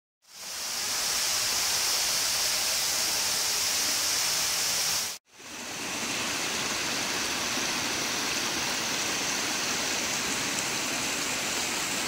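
Water spilling steadily over a pond's concrete overflow weir, a continuous rushing hiss. It breaks off for an instant about five seconds in, then carries on.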